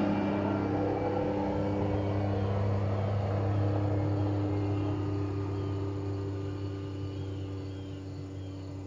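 Engine drone with a steady low hum, loudest at the start and slowly fading away.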